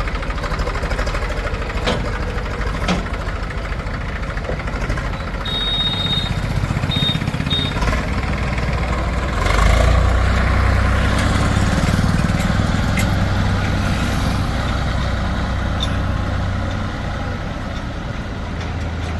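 Heavy diesel engine of farm machinery running, growing louder about ten seconds in as it is worked harder, with a few sharp knocks early on and a short run of high beeps about six seconds in.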